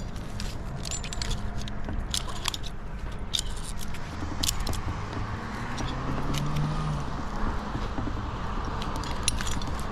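Metal climbing hardware clinking and jingling in irregular bursts as the gear is handled and moved, over a steady low hum.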